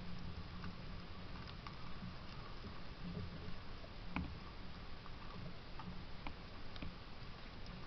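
Steady hiss and low rumble of a trail camera's outdoor recording, with faint scattered ticks and taps every second or so.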